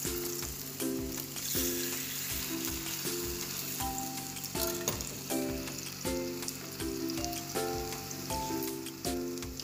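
Slices of canned luncheon meat sizzling in hot oil in a frying pan, a steady hiss, under background music with a steady beat and a repeating melody.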